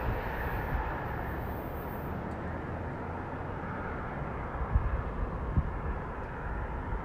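A freight train of autorack cars rolling away into the distance, a steady rumble of wheels on rail. Wind thumps on the microphone a couple of times about five seconds in.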